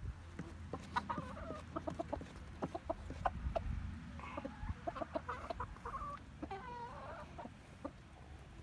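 Backyard hens clucking softly among themselves while feeding, with a few short calls and a wavering call near the end, over many quick taps of beaks pecking at feed on the ground.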